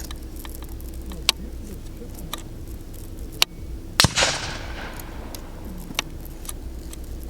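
A fullbore target rifle shot about four seconds in: a sharp crack followed by a long echo fading down the range. Fainter, sharper cracks of other rifles on the firing line come at intervals.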